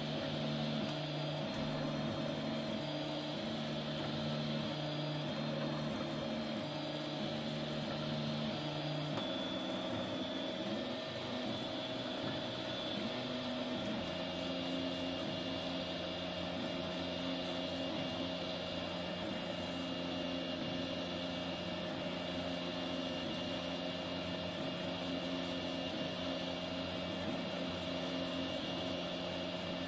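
3D printer running a print: its stepper motors whine in short tones that jump in pitch every half second or so as the print head shuttles back and forth, over a steady hum.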